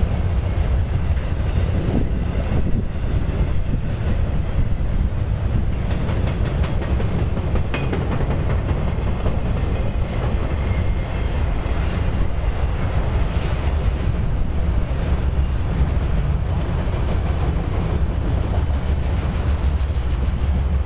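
Auto rack cars of a freight train rolling past at a steady speed, their steel wheels running on the rails in an even, continuous rumble.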